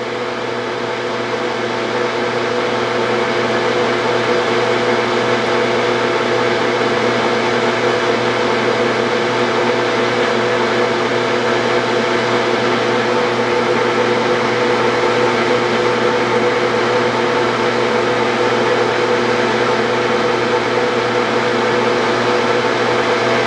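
Metal-turning lathe running under power, a steady whine of several held tones over a hiss, rising slightly in the first few seconds.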